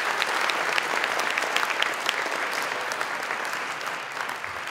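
Audience applauding, many hands clapping at once, slowly dying down toward the end.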